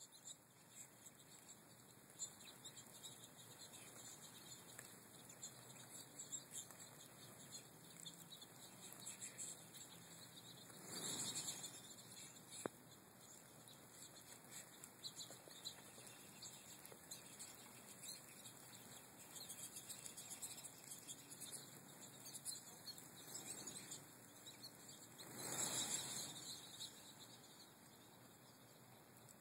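Faint high twittering of American goldfinches, with two brief rushing swells, one about eleven seconds in and one about twenty-five seconds in.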